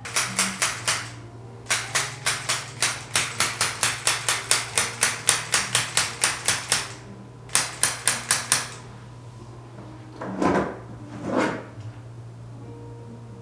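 Rapid sharp percussive taps, about five a second, in three runs: a short one, a long one of about five seconds, then another short one. This is a percussive treatment on the seated patient. Two softer, duller sounds follow near the end.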